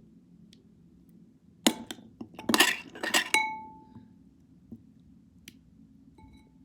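A run of quick clinks and knocks of hard objects, one of them leaving a short ringing tone, and a single faint clink near the end.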